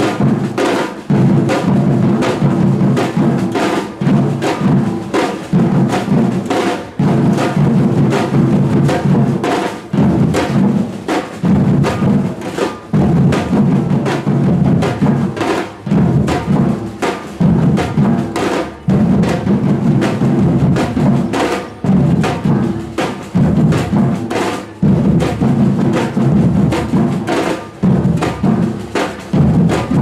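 A samba-style street drum band, many drummers beating large silver surdo drums with felt-headed mallets together in a loud, steady, driving rhythm.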